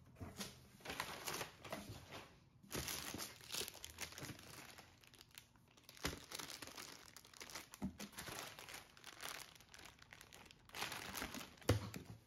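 Packaging being unwrapped by hand, crinkling and tearing in fits and starts as a delivered parcel is opened.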